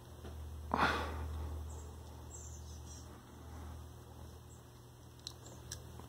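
A person's sharp sniff about a second in, over a low steady hum, with a few faint small clicks near the end as the pin is worked out of the connector.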